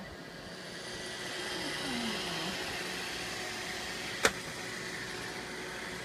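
iRobot Roomba 650 robot vacuum running its vacuum motor and brushes on carpet, a steady whirring that builds up about half a second in. A single sharp click about four seconds in.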